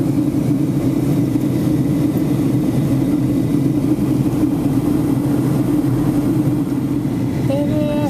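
Steady drone of an airliner cabin in flight on descent: engine and airflow noise heard from inside the cabin.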